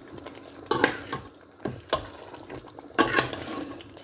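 Metal spoon stirring curry in a stainless-steel pot, clinking and scraping against the pot several times, with the loudest knock about three seconds in.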